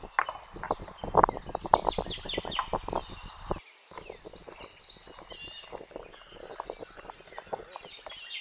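Wooden spoon knocking and scraping against a tin of harissa and a plastic cup as the paste is scooped into a marinade: a quick run of clicks and knocks that stops abruptly about three and a half seconds in, after which softer clicks of the mixing continue. Small birds chirp throughout.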